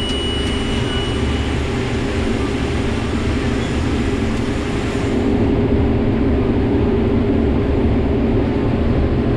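Combine harvester running while shelling corn: a steady engine and machinery drone with a hum and low rumble. A thin high steady tone stops about a second and a half in, and the drone gets slightly louder about halfway through.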